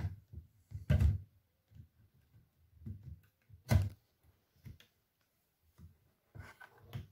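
A plastic laptop lid and screen assembly being handled and moved on a table, giving a series of short knocks and bumps. The loudest come about a second in and just before four seconds, with a few smaller ones near the end.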